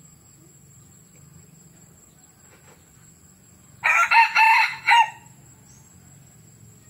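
A young red junglefowl F1 hybrid rooster crowing once, about four seconds in. It is a short crow of about a second, broken into a few quick pieces and ending with a clipped final note.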